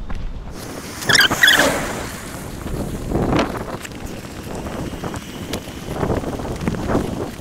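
Wind buffeting an action camera's microphone while walking on a country lane, with irregular footstep thuds. A brief rustle of the camera being handled about a second in.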